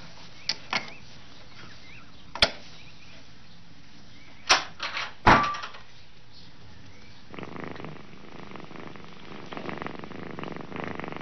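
A few sharp clicks, then two loud knocks from the wooden puzzle box and its latch about four and a half and five seconds in. From about seven seconds a cat purrs steadily, a fast, even pulsing.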